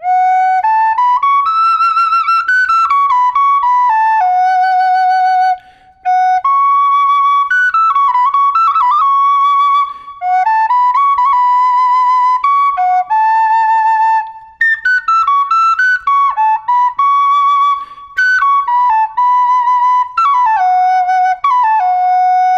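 Native American flute in high F#, made of aromatic cedar, playing a slow solo melody in phrases with short breaths between them, its notes wavering with vibrato and ornamented with quick grace notes.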